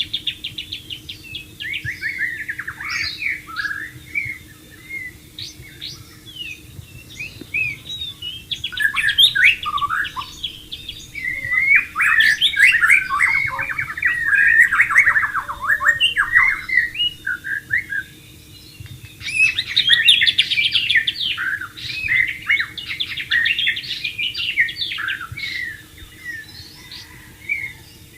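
White-rumped shama singing a long run of varied phrases: clear sliding whistles mixed with fast trills, in bouts separated by short pauses.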